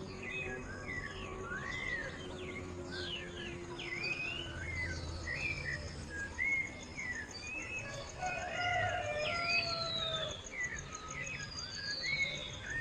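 Dawn chorus of several birds chirping and whistling in short rising, arching and falling notes, one after another, over a steady high pulsing insect trill.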